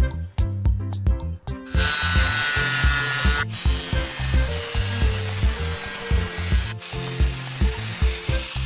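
Arc welding, a steady hiss that starts about two seconds in and breaks off briefly twice, over background music with a steady beat.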